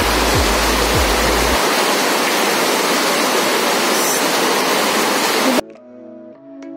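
Very heavy rain pouring down, with rainwater streaming off a roof edge in a steady rush. It cuts off suddenly near the end, giving way to soft background music.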